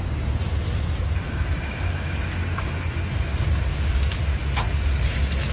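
Hot oil sizzling and bubbling as batter is piped from a metal funnel into a wide frying pan, over a steady low rumble.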